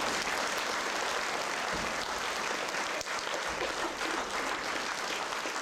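Theatre audience applauding steadily, many hands clapping together.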